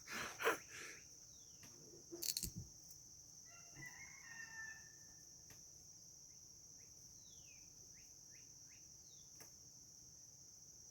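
A distant rooster crows once, about four seconds in, over crickets trilling steadily. Near the start comes a sharp click with a thump, and later a few short bird chirps.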